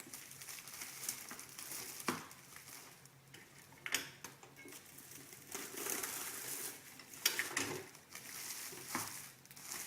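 Plastic shrink film crinkling and rustling as a bag is sealed on an impulse sealer and the excess torn off, with a few sharp clicks, the loudest about seven seconds in.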